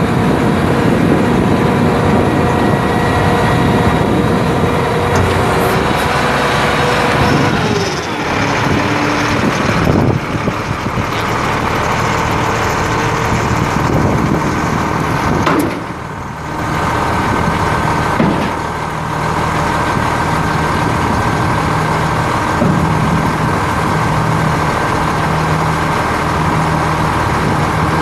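International DT466 inline-six diesel of a 1991 International 4900 dump truck running steadily, with the PTO hoist working the steel dump bed as the bed is lowered. The engine note drops about a quarter of the way in, and the sound dips briefly a little past halfway.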